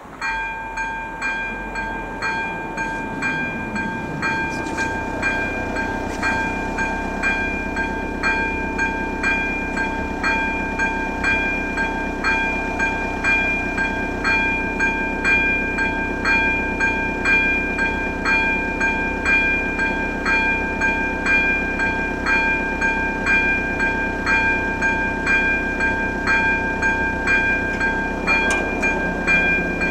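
AŽD ZV-02 electric level-crossing bell starts ringing suddenly and keeps striking in a steady, even rhythm of about one and a half strokes a second, sounding the crossing's warning.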